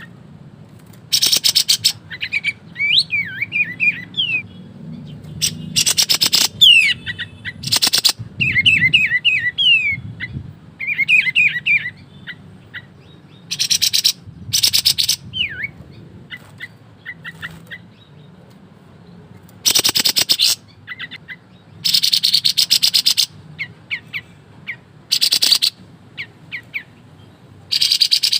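A kapas tembak songbird singing hard. Harsh, rapid rattling bursts of about a second each alternate with quick, sharp chirps that slide downward, the rapid-fire 'ngebren' song prized in this bird.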